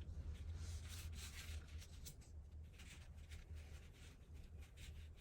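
Paper pieces being handled and slid about on a work surface: soft, irregular rustling over a low steady hum.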